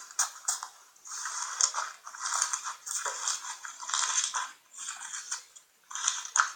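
Slime being squished and worked by hand: a run of sharp sticky clicks and pops, then longer crackling squelches about a second each, then clicks again near the end.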